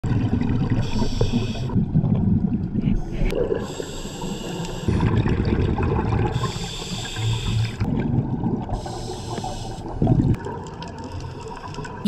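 Underwater breathing through a scuba regulator: four hissing inhalations, each about a second long, come at roughly three-second intervals, with low bubbling of exhaled air between them.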